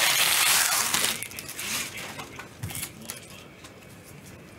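Plastic trading-card pack wrapper crinkling and crumpling loudly for about a second, then fainter rustles and light clicks of cards being handled.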